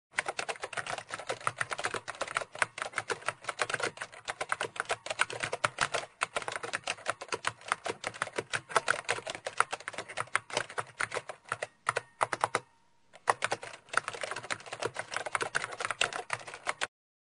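Rapid typing on a computer keyboard: a quick, uneven stream of key clicks, with a brief pause about thirteen seconds in, stopping shortly before the end.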